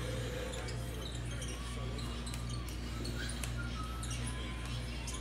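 A stack of hockey trading cards being thumbed through one at a time, with faint scattered snaps and slides of card on card. A steady low electrical hum sits underneath.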